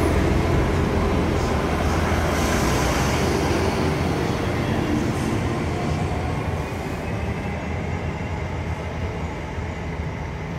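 Train wheels rumbling on the rails as a Northern passenger unit and then a long rake of freight wagons pass close by, a steady heavy rumble that slowly fades toward the end.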